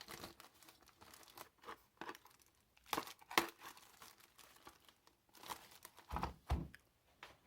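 Packaging crinkling and tearing as new tools are handled and unwrapped, in a run of rustles and small clicks, with a few louder rustles and a couple of dull knocks about three seconds in and again near the end.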